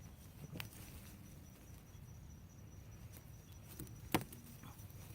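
Scattered knocks and ticks from digging and handling in garden soil, with one loud sharp click about four seconds in. A steady, slightly pulsing high insect drone runs underneath.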